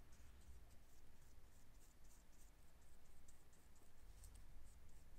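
Faint soft strokes of a small paintbrush on paper, dabbing and spreading paint swatches, a few strokes a second.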